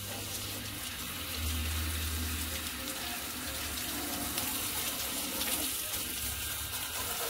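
Water spraying steadily from a garden hose onto a tractor's body and tyres as it is washed down.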